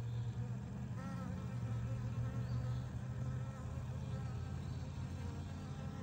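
Honeybees buzzing, a steady low hum.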